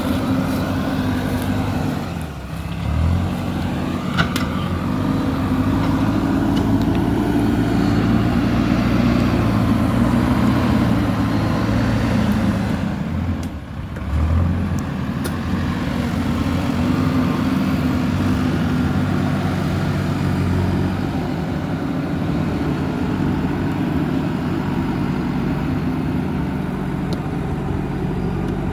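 JCB 3DX backhoe loader's diesel engine running under working load. Its note sags briefly about two seconds in and again about halfway through, picking straight back up each time.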